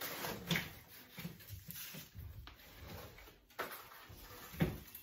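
Sweet potatoes being set down by hand on a cardboard-lined wooden pantry shelf: soft knocks and rustling, the loudest knock near the end.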